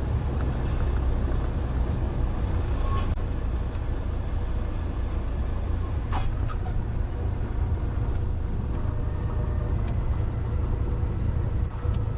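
Light aircraft's piston engine running steadily with rushing air noise on board, with a brief sharp sound about six seconds in.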